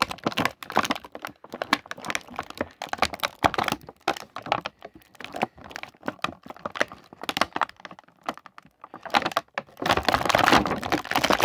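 Clear plastic blister packaging of an action figure crackling and clicking in irregular bursts as it is bent and pried by hand to free the accessories, with a denser, louder run of crinkling near the end.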